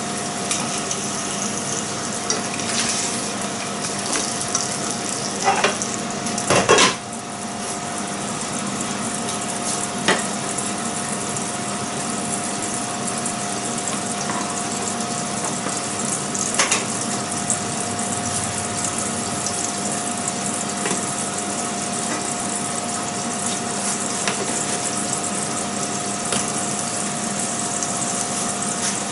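Food frying in butter in a non-stick frying pan on a ceramic hob, a steady sizzle. There are a few sharp clatters of pan and utensil, the loudest about six to seven seconds in, over a steady hum.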